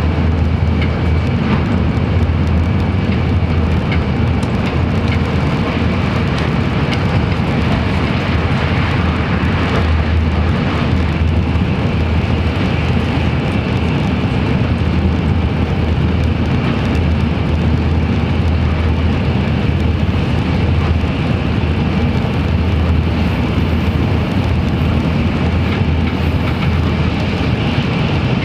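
Steady running noise inside an N700-series Shinkansen motor car moving between stations: an even, loud low rumble of wheels, traction motors and air on the body, with a faint steady high tone above it.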